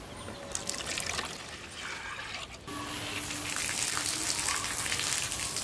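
Water spraying and splashing from the jet of a small homemade DC-motor water pump, a continuous hissing, spattering rush that grows louder about halfway through.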